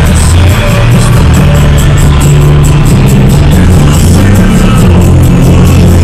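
Loud electronic music with a steady beat and a moving bass line.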